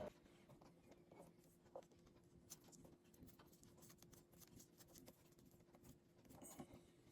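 Near silence: faint, scattered small clicks and taps over a faint steady hum.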